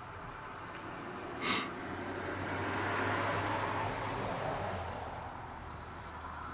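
A vehicle passing, its noise swelling and fading over about three seconds, with a single short sharp snap about a second and a half in.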